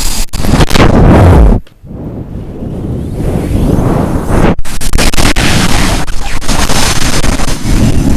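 Strong wind gusting hard against the microphone, with rain: loud rushing noise heavy in the low end. It drops out abruptly about one and a half seconds in and builds back up, with another brief break about halfway.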